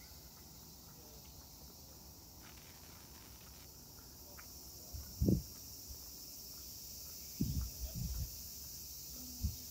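Cicadas singing in a steady, high-pitched chorus, with a few brief low thumps about halfway through and near the end.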